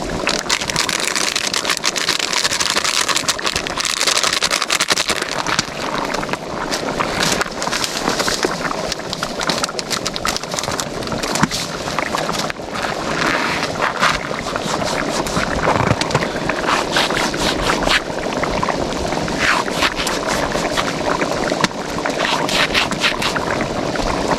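Big pan of plov bubbling and sizzling over a wood fire, with scattered short clicks and crackles.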